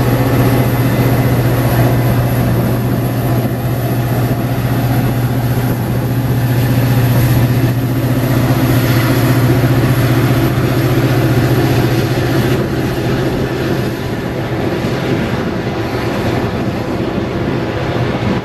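EMD F40PH diesel locomotive's engine running with a steady low drone as it pushes a commuter train away, along with the train's rumble on the rails. The drone fades over the last few seconds as the train recedes.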